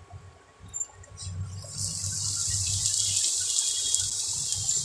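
Boiled noodles going into a hot kadhai of oiled vegetables and sizzling: a steady hiss that starts about a second and a half in and builds, with a low hum underneath.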